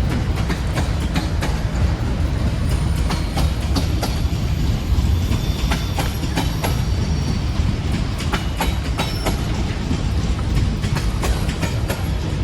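Heavy freight train rolling past: a steady low rumble with wheels clicking over the rail joints and thin high wheel squeals now and then.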